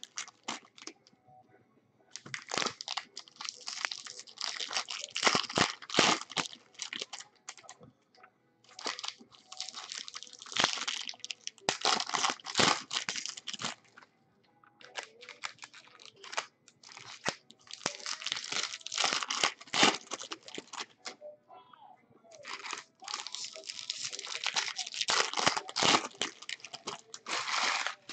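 Foil wrapper of a Bowman Baseball jumbo card pack crinkling and tearing as the pack is ripped open and handled. It comes in four bursts of a few seconds each, with short pauses between.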